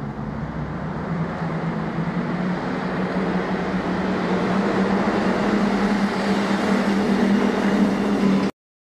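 A vehicle engine running steadily with a low hum, getting gradually louder, then cutting off suddenly near the end.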